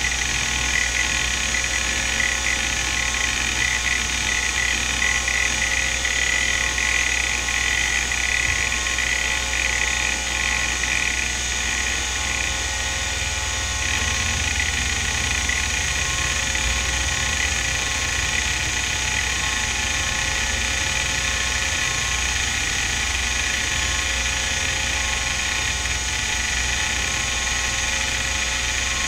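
Quantum ProDrive 80S 3.5-inch SCSI hard drive running at 3600 RPM: a steady whine of several tones over a low hum, with a brighter flickering edge near the top of the whine for the first dozen seconds or so.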